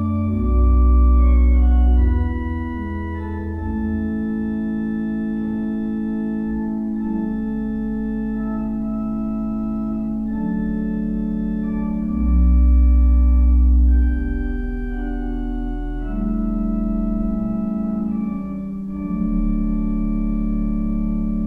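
Church organ playing slow, sustained chords, with deep bass pedal notes that are loudest twice: about half a second in and again around twelve seconds in.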